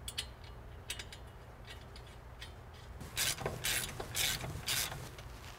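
Hand ratchet running down the caliper mounting nuts onto shimmed studs: a few light metal clicks, then about five quick ratcheting strokes in the second half.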